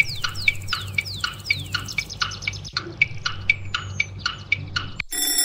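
Quiz countdown timer sound effect: a rapid run of short chirp-like ticks, about four a second, many falling in pitch. About five seconds in, an alarm clock starts ringing to mark that time is up.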